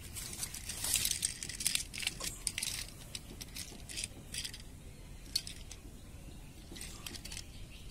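Leaves and leaf litter rustling and crackling as a hand reaches in and picks up a small plastic toy garbage truck, then scattered light clicks of the plastic toy being handled and its tipping bin moved.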